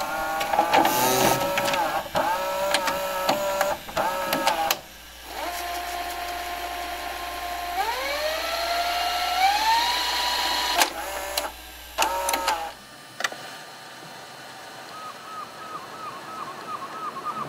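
VHS-tape style sound effect: wavering, warbling tones broken by clicks and glitches, with one long tone that slides upward about eight seconds in. It quietens after about thirteen seconds.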